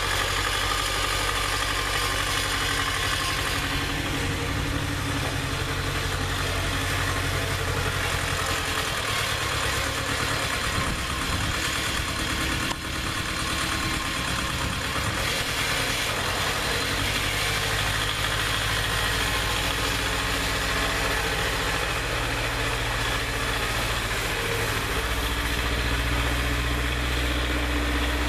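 1980 Ford 1200 compact tractor's three-cylinder diesel engine running steadily while it plows snow with a front blade. Its engine speed shifts up and down a few times.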